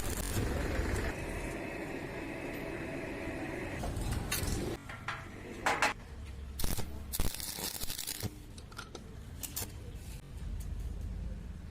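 Metalwork noises: a steady whine for about three seconds, then scattered sharp metal clanks and clicks.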